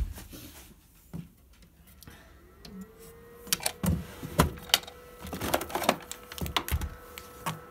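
Plastic DVD and game cases clicking and clattering as they are sorted through by hand in a wooden drawer, in quick irregular knocks from about three and a half seconds in. A steady electrical hum rises in pitch and settles about two seconds in, then holds under the clatter.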